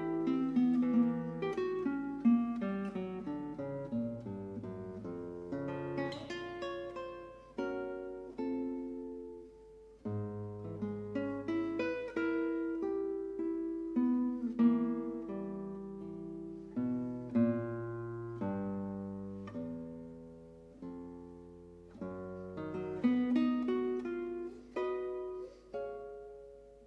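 Background music of a solo acoustic guitar, picked notes and chords that each ring and fade.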